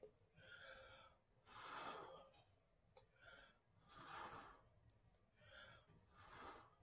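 Faint breaths of a person blowing by mouth on wet acrylic pour paint to push it out into a bloom: three soft puffs about two seconds apart, with quieter in-breaths between.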